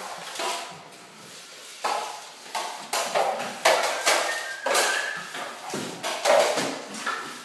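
Drywall hammer driving nails into ceiling drywall: about six irregular blows, each dying away quickly in the bare room.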